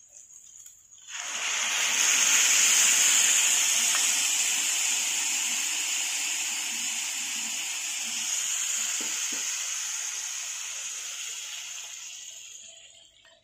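Water poured into a hot pressure cooker of rice fried in oil with spices, sizzling and hissing loudly as it hits the hot pan. The sizzle starts suddenly about a second in and slowly dies away near the end.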